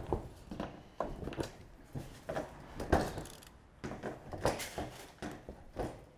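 Irregular metallic clanks and knocks, about one or two a second, as the top ends of corrugated Colorbond steel roof sheets are bent up with pliers, the thin sheet flexing and rattling.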